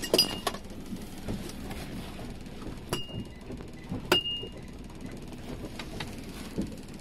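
Sharp knocks of an aluminium fish club as a caught fish is clubbed on the head on the boat floor; two blows, about three and about four seconds in, ring briefly with a metallic tone.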